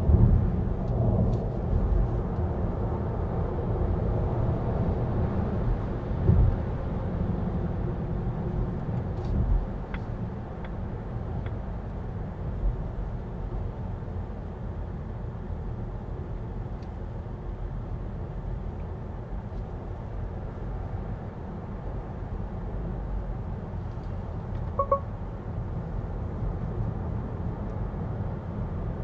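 Volvo EX30 electric car driving: a steady low tyre and road rumble, with a few thumps in the first ten seconds. A short electronic beep sounds about 25 seconds in.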